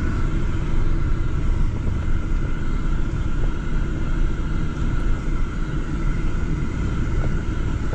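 Steady rumble of a pickup truck driving slowly over a stubble field, heard from inside the cab, with a faint steady whine above it.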